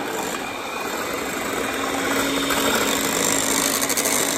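Electric hand mixer running steadily, its twin wire beaters whisking beaten eggs in a glass bowl, being beaten towards the thick mousse-like stage for a sponge. A steady motor hum comes through about one and a half seconds in.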